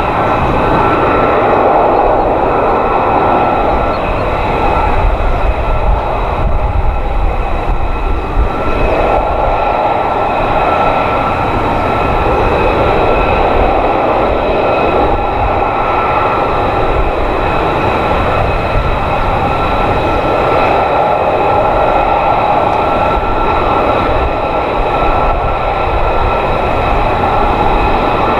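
F-35B fighter's jet engine running steadily at low power, a continuous whine of several high tones over a broad rushing noise.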